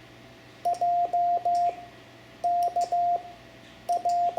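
Morse code (CW) tone keyed by hand, a single steady pitched beep sending the letters J, K and L: dit dah dah dah, then dah dit dah, then dit dah dit dit.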